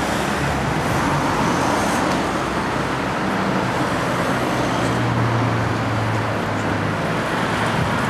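Steady city street traffic noise: passing cars with a low engine hum that is strongest in the middle.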